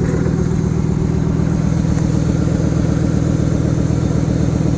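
Ford F350's V10 gasoline engine idling steadily, with an exhaust leak that the owner has noted.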